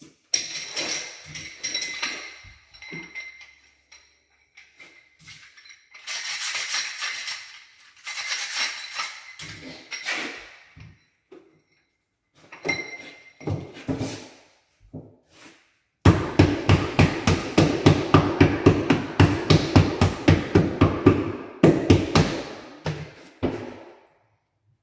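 Ceramic mosaic tile sheets being set in mastic on a wall: scattered clicks and scrapes of tile handling in the first half. About halfway through comes a run of rapid knocks, about five a second, that lasts about eight seconds as the sheets are tapped in.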